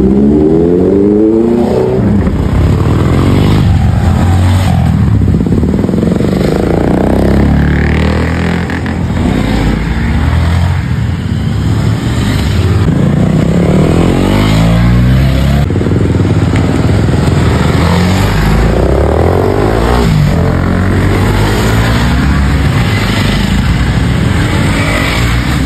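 A line of motorcycles riding past one after another, their engines revving up and dropping in pitch as each bike goes by.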